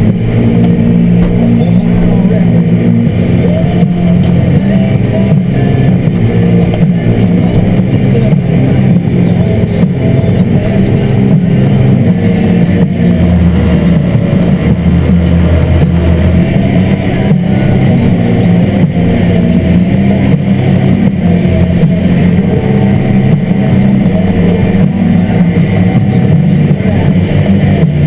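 Farm tractor's diesel engine running steadily under load as it tows a dirt pan, heard from inside the cab. Its note shifts lower for a few seconds about halfway through.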